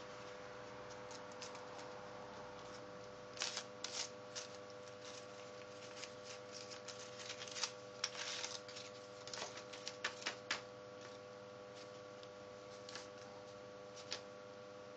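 Folded paper origami skeleton hands being handled and flexed: scattered crinkles, rustles and soft clicks, busiest through the middle, over a faint steady background tone.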